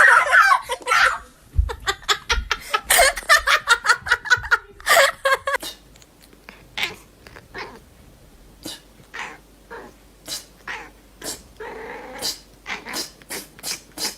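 A cat yowling and meowing mixed with a person's laughter, followed by a series of short, sharp clicks or knocks.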